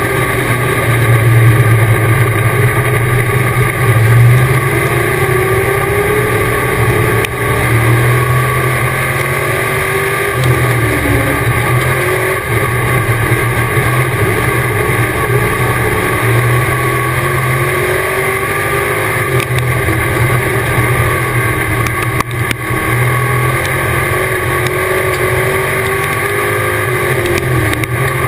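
Dirt-track race car's engine heard from inside the cockpit at racing speed, running loud and steady, its pitch rising down the straights and falling away into the turns every few seconds.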